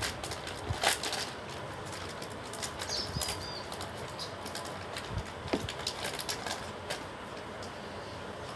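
Thin plastic jewelry packets crinkling and rustling as hands handle and unwrap them: irregular crackles, loudest in the first second.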